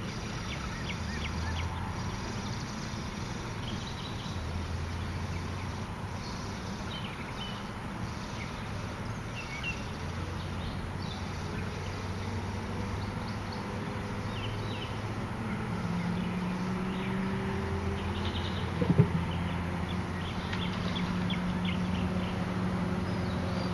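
Low drone of a distant motor that fades in and out, with short high chirps of small birds scattered throughout and a single sharp knock late on.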